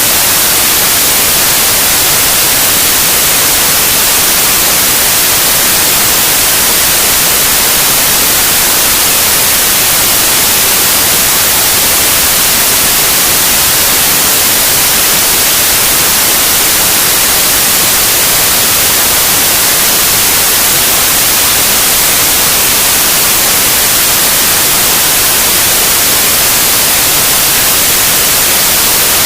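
Loud, steady white noise: an even hiss across all pitches, strongest in the highs, with no change.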